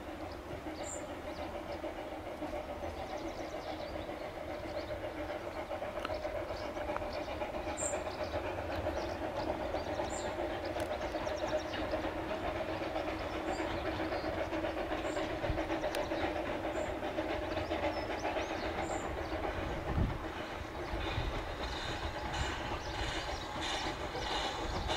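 Corris Railway No. 7, a narrow-gauge steam tank locomotive, running along the line with its coaches: a steady rumble of wheels on rail that grows a little louder as the train draws nearer, with a regular beat coming through near the end.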